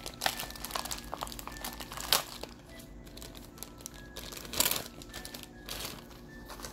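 Clear plastic packaging crinkling and rustling as it is worked open and pulled off by hand, with a sharp crackle about two seconds in and another a little past four and a half seconds.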